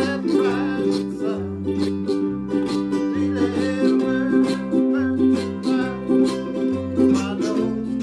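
A ukulele band playing: several ukuleles strummed in a steady, even rhythm over a plucked bass line that moves about once a second.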